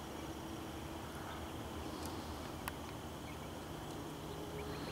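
Steady outdoor background hiss and low rumble, with one sharp click a little past halfway.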